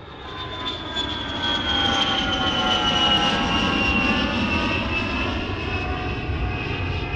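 Airplane flying overhead: a rumble that swells over the first couple of seconds and then holds, with a high whine that slowly falls in pitch as it passes.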